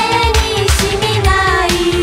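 1988 Japanese idol pop song by a female vocal duo: women singing a melody over a pop band backing with a steady drum beat.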